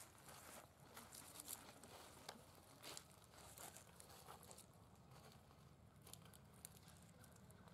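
Faint crackling and rustling of dry leaf litter as a macaque moves about on it. The crackles are frequent at first and die away about five seconds in, leaving a faint steady hiss.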